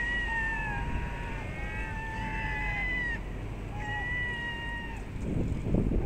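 Herring gulls giving a series of drawn-out mewing calls, several overlapping, with a buffet of wind on the microphone near the end.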